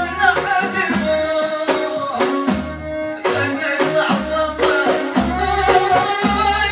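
Moroccan aita folk music played live: a violin melody over a steady beat of hand frame drums, with a man singing.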